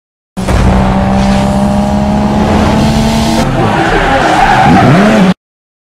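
A car drifting: the engine is held at steady high revs with the tyres squealing. In the last two seconds the pitch wavers up and down, and then the sound cuts off suddenly.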